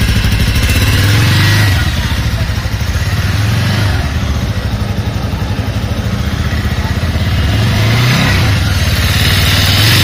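Bajaj Avenger 220's single-cylinder engine running through its stock exhaust. Its revs drop back to idle about two seconds in, and it idles with a steady pulsing beat. Near the end the throttle is blipped in a short rise and fall of revs.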